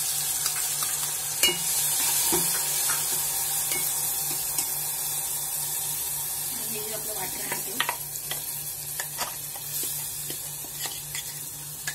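Soaked dried baby shrimp sizzling loudly in hot oil in a metal pot, the sizzle slowly fading. A steel ladle scrapes and knocks against the pot as they are stirred, with the clicks more frequent in the second half.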